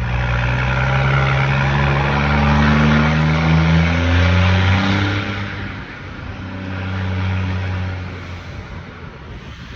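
Ford Cargo 2422 truck's diesel engine running through a straight exhaust pipe with no muffler, revving up for about five seconds, easing off, then rising again briefly before settling lower.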